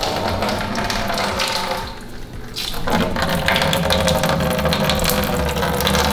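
Apple cider running out of a siphon tube into a plastic pail, a steady splashing fill. It eases off briefly about two seconds in, then runs on strongly.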